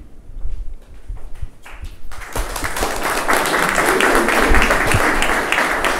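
A few soft knocks, then an audience breaks into applause about two seconds in and keeps clapping steadily.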